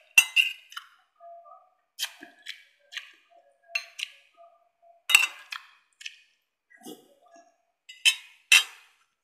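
Metal spoon and fork clinking and scraping against a ceramic plate of rice, in irregular strikes about every half second to second, the loudest just after the start, about five seconds in, and near the end.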